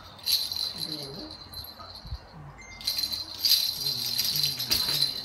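Baby's plastic toy rattle being shaken, a jangly rattling heard briefly near the start and then steadily for about two seconds from about three seconds in.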